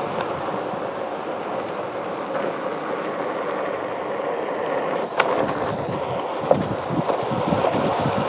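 Onewheel Pint electric board riding along pavement: the hub motor's steady hum and the tyre rolling. One sharp knock comes about five seconds in, and wind buffets the microphone more in the last few seconds.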